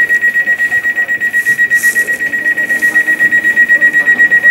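Electronic warning beeper on a train sounding one high tone in rapid, even beeps, about ten a second.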